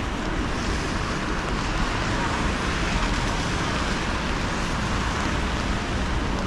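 Steady city traffic noise on rain-wet streets, with tyres hissing on wet asphalt and rain falling.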